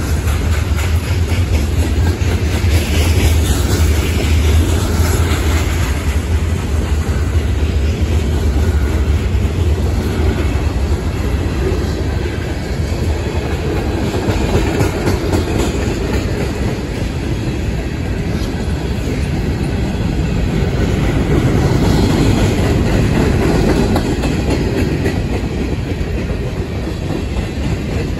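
Freight train cars rolling past close by: a steady loud rumble and clatter of steel wheels on the rails, with clickety-clack over the rail joints. A deep low rumble is strong in the first half and eases off about halfway through.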